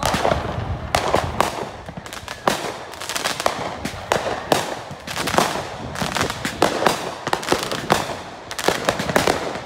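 Consumer fireworks going off in quick, irregular succession: many sharp bangs and crackles overlapping, each with an echoing tail.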